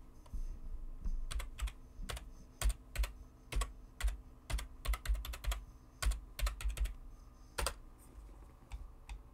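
Typing on a computer keyboard: a run of irregular key clicks in short bursts, thinning out near the end.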